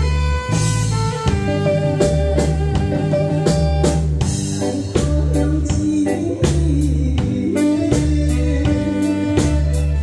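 Band music for a Taiwanese ballad: a drum kit keeping a steady beat under bass and guitar.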